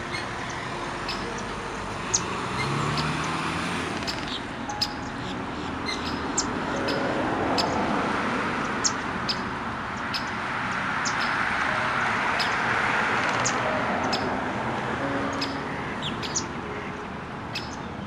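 Small birds chirping in short, scattered notes over a steady rushing hum like distant traffic that swells and fades.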